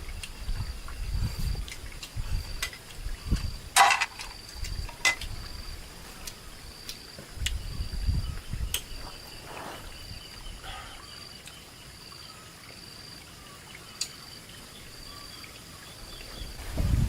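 An insect chirping in a steady, even pulse, high-pitched. Over it come scattered sharp clicks, with a louder one about four seconds in, and some low thumps.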